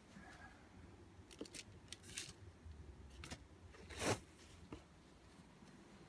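Handling noise from a hand-held phone camera being swung about: a series of soft rustles and clicks, the loudest about four seconds in. Under it is a faint low steady hum from a Rowenta dehumidifier running on its low setting.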